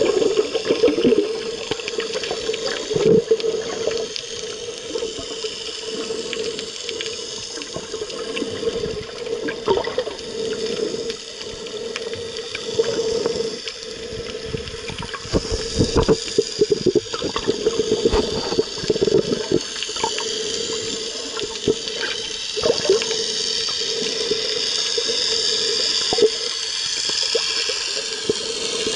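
Water churning and bubbling around a submerged camera, with irregular splashes and knocks and a steady humming tone underneath.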